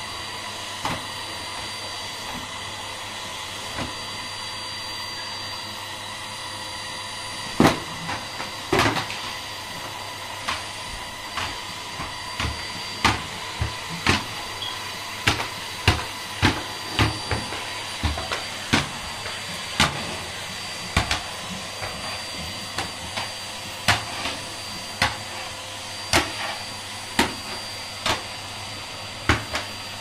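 Henry canister vacuum cleaner running steadily with its motor whine, its floor tool sweeping up scattered confetti from a laminate floor. Sharp clicks start about seven seconds in and then come roughly once a second.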